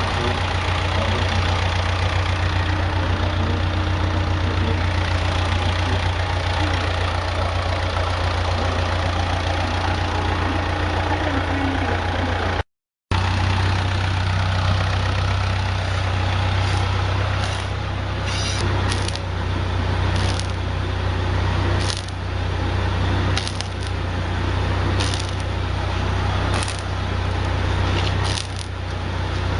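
Wood-gas-fuelled generator engine running steadily with a deep, even hum. From about halfway through, a series of sharp clicks sounds over it, roughly one every second or so.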